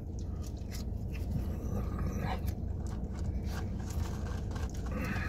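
Faint chewing and mouth sounds of someone eating a sandwich, with scattered small clicks over a steady low hum.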